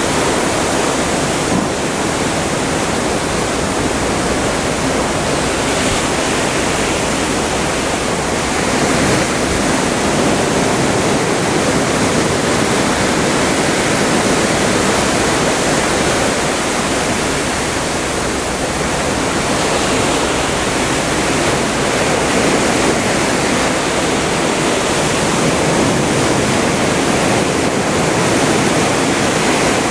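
Atlantic Ocean water rushing past a cruise ship under way: a loud, steady rush of sea with slight, slow rises and falls.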